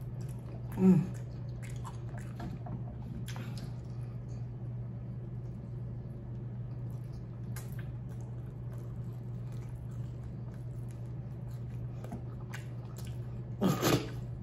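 Close-up mouth sounds of a person eating barbecue ribs: wet chewing, lip smacks and finger-licking, as small irregular clicks over a steady low hum. A short vocal hum about a second in, and a louder one near the end.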